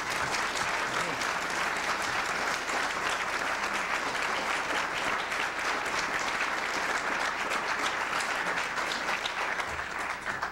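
Audience applauding: dense, steady clapping from a room full of people, dying away near the end.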